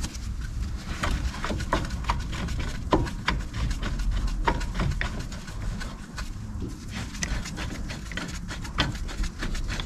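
Irregular metallic clicks and knocks from hand tools and bolts while a Brembo four-piston brake caliper is fitted to a car's front hub, over a low rumble.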